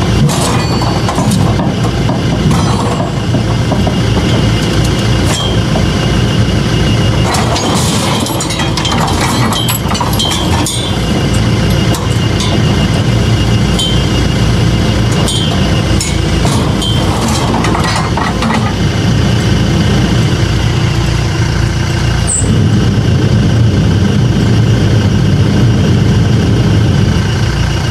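Tractor engine running steadily under load while it pulls back against a ratchet strap to bend a steel feed barrier, with scattered metallic clicks and clinks.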